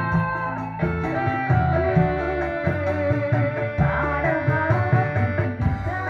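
Live band music: an electronic keyboard holding sustained notes over a pulsing bass line, with hand drums keeping a steady beat. The sound is a little harsh and distorted, played straight into the room with no recording equipment.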